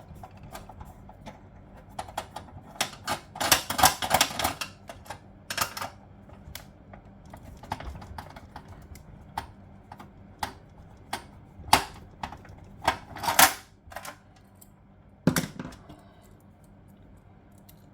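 Irregular clicks and clatters of small metal and plastic parts being handled as an old fuse box is taken apart, with a couple of denser bursts of rattling.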